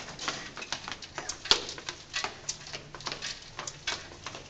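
A toddler's footsteps in sandals on a hard, smooth floor: a quick, uneven patter of small taps, about three or four a second, one louder tap about a second and a half in.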